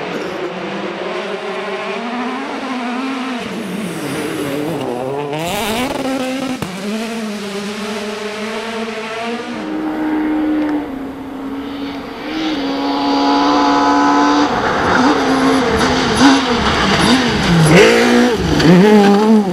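Rally car engine revving hard, its pitch rising and falling again and again through gear changes. It grows louder over the last few seconds as a Ford Fiesta rally car slides past close by.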